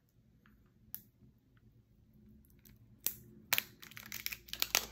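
Peeling the lid off a small plastic dipping-sauce cup of honey mustard: a single faint tick about a second in, then a quick run of sharp crackling clicks over the last two seconds.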